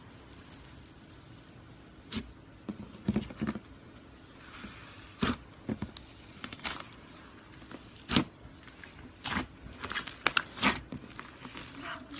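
Slime with clay mixed in, worked by hand, giving irregular sticky clicks and pops that come faster in the second half.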